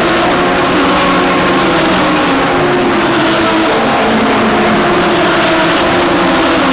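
Several DTM GT3 race cars running at speed, their engine notes overlapping at different pitches.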